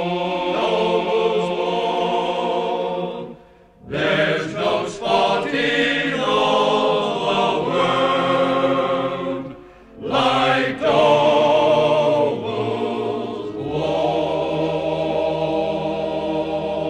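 Background music of voices singing long, held notes with vibrato, in three phrases broken by short pauses.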